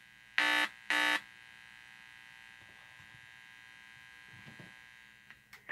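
Small speaker driven by a breadboarded LM386 amplifier giving two short, loud buzzes about half a second apart as the headphone-jack input plug is handled and connected, then a faint steady high whine with hiss from the speaker. A click comes near the end.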